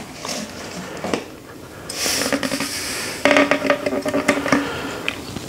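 Sugar tipped from a ceramic bowl into a multicooker's inner pot, with a soft hiss of pouring grains about two seconds in. A short, steady humming tone of just over a second follows and is the loudest sound.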